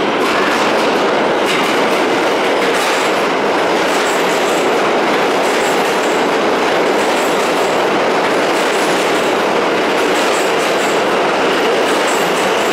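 R160 subway train pulling into an underground station, heard from the platform: a loud, steady rumble of steel wheels on rail with clickety-clack from the rail joints.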